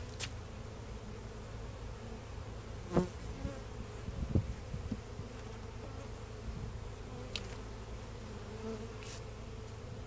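Honeybees humming steadily from an open hive, with a few sharp clicks and knocks, the loudest about three seconds in, as the wooden frames are levered apart with a hive tool.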